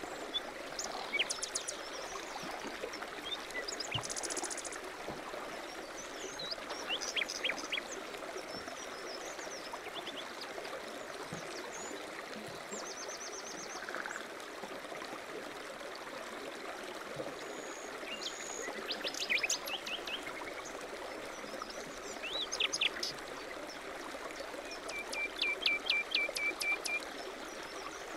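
A stream running steadily, with songbirds calling over it in short chirps and trills every few seconds.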